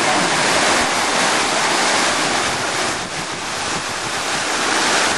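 Steady rush of water pouring down a water-park slide and churning into the pool below, an even loud noise that dips briefly about three seconds in.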